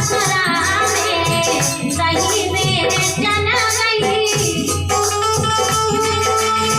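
Bundeli folk song: a woman singing over instrumental accompaniment with a steady low drone and a regular rattling percussion beat.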